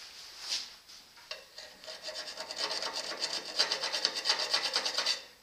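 Flat file scraping back and forth over the edge of a freshly drilled hole in a bandsaw's metal housing, deburring it. A few strokes at first, then rapid short strokes from about a second in that grow louder and stop just before the end.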